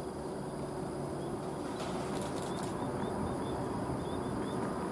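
Distant Basler BT-67 turboprop engines (Pratt & Whitney Canada PT6A turboprops) running steadily with the aircraft held on the runway before takeoff, heard as an even rumble. Small birds chirp over it repeatedly from about a second in.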